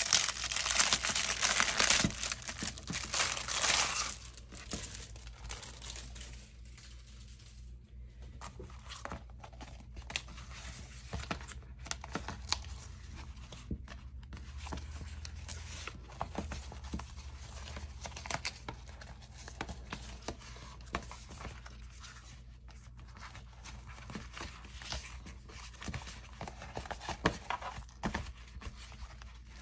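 Clear plastic packaging bag crinkling loudly as it is pulled open for about the first four seconds, then softer, scattered crinkles and light taps as the planner cover inside is handled.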